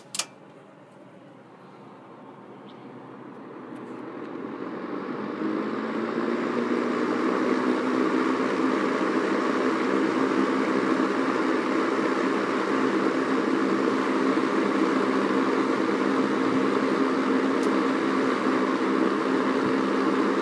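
Early-1970s Fasco-made Arctic Aire model 200 box fan switched on at low speed: a click, then the motor and blades spin up over about six seconds and settle into a steady rush of air with a motor hum.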